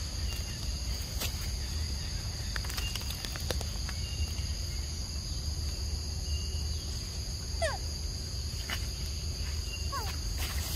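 Steady, high-pitched chorus of crickets and cicadas, with a few light clicks of rustling leaves and, twice in the second half, a short falling chirp.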